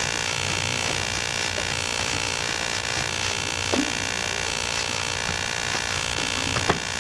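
Steady electrical hum and buzz, with two faint clicks partway through.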